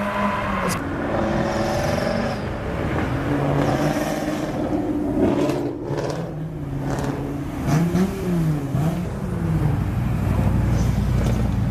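A car engine running and being revved, its pitch rising and falling quickly a couple of times about two-thirds of the way through.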